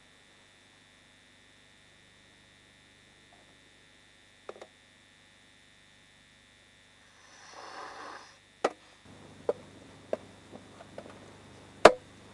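Very quiet at first, then tea poured briefly from a metal teapot, followed by several sharp clinks of tea glasses on a metal tray, the loudest one near the end.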